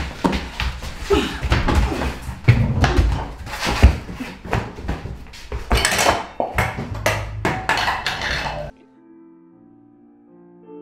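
Irregular thuds and knocks of a scuffle between two people in a small room, with a few gasping voice sounds. About nine seconds in it cuts off suddenly to soft music of sustained notes.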